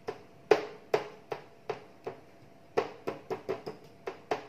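Gentle, repeated taps of a small steel bowl's base pressing sesame seeds into a patted bajra-flour bhakri dough on a steel plate. About fifteen quick taps, each with a slight metallic ring, with a short pause in the middle.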